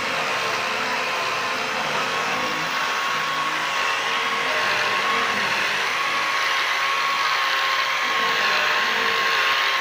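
Handheld angle grinder running steadily with a disc on the edge of a granite slab, shaping and polishing the moulded edge: a steady high whine over a hiss.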